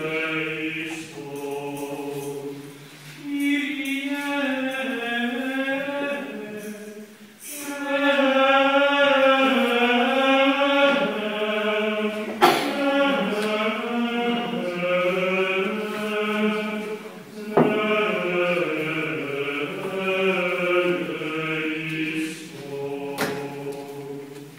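A choir sings Latin chant in long, held phrases. There is a sharp knock about halfway through and another some five seconds later.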